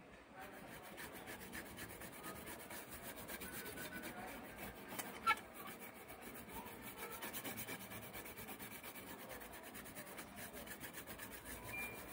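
Toothbrush bristles scrubbing the bare circuit board of an MSI GeForce GTX 1050 Ti graphics card, a faint scratchy rasp in quick back-and-forth strokes. A single sharp click stands out about five seconds in.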